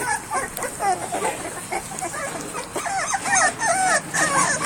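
A litter of three-week-old pit bull puppies crying and whimpering, with many short cries rising and falling in pitch and overlapping one another. The cries get busier about three seconds in.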